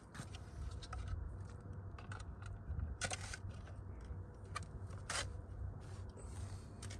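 Scattered clicks, rustles and scrapes of gear being handled while a pop-up ice shanty is set up, over a steady low rumble. The sharpest clicks come about three and five seconds in.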